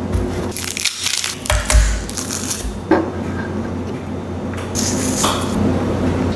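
Close-up food-prep sounds: a paper towel dabbing raw salmon fillets, minced garlic scraped from a jar with a knife into a small glass bowl, and a glass spice jar shaken. They come as a string of short rustles and scrapes, with a sharp click about three seconds in.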